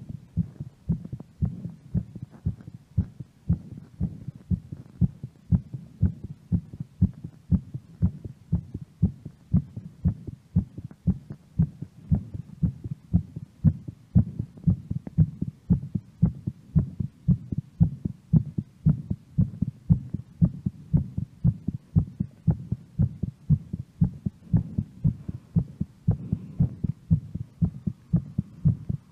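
A woman's heartbeat recovering after a workout: a steady, regular lub-dub pulse of low thuds.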